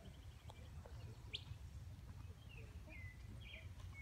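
Faint, short whistled chirps and sliding notes: one quick upward sweep, then a few small falling notes in the second half. Under them is a low, steady rumble of wind on the microphone.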